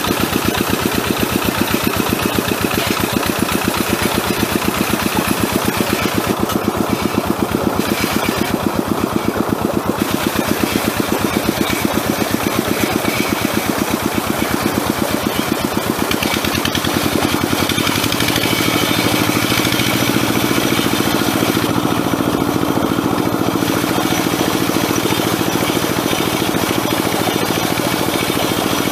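Single-cylinder diesel engine of a two-wheel hand tractor running steadily under load while plowing a muddy rice paddy, with a fast, even beat of firing strokes. About two-thirds of the way through its note changes, with more weight in the middle of the sound.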